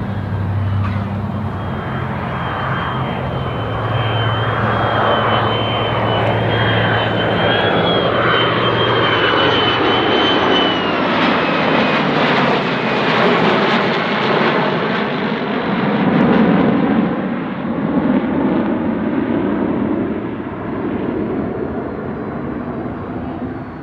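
Formation of an A-10C, a P-51 Mustang and an F-35A flying past overhead: a loud, steady jet roar with a low hum under it. A high whine holds, then slides down in pitch about ten to twelve seconds in as the aircraft pass, and the roar drops lower as they move away.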